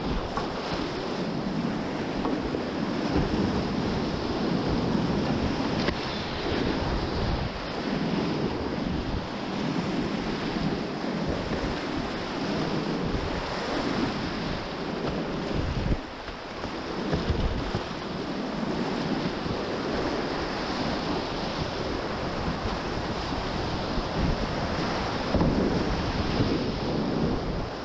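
Whitewater rapids rushing and splashing around a kayak running them, heard close up with spray and wind buffeting the microphone. The noise is steady, swelling and easing as the boat drops through waves, with a brief dip about halfway through.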